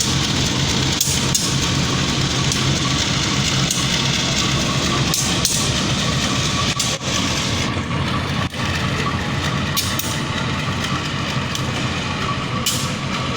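CC 201 (GE U18C) diesel-electric locomotive's engine running steadily at idle, a constant low diesel rumble with no horn sounding.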